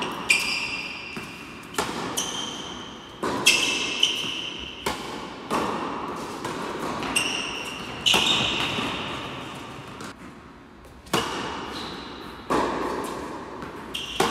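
Tennis rally: rackets striking the ball and the ball bouncing on the hard court, a sharp hit every second or so, each echoing in a large indoor hall. There is a brief lull about ten seconds in before the hits resume.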